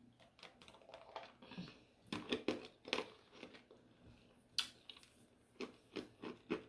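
Close-miked eating sounds: chewing and mouth smacks on soft chicken enchiladas, heard as a run of irregular short clicks, busiest in the middle and again near the end.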